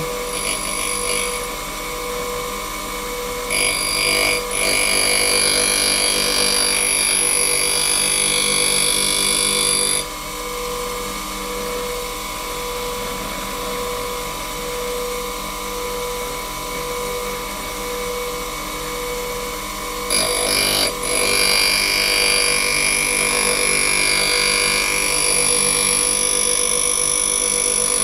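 Bench grinder with a diamond wheel running steadily with a hum, while a milling cutter's flute is fed against the wheel to grind its secondary clearance. Two high-pitched grinding passes of several seconds each: one from about three and a half to ten seconds in, another starting about twenty seconds in.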